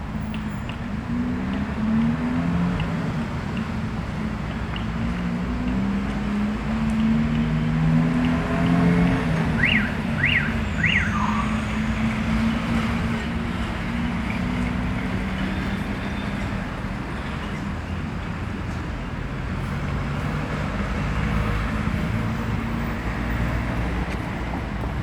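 Steady road-traffic noise with a car engine running, its low hum wavering through the first half. About ten seconds in come three quick rising-and-falling chirps.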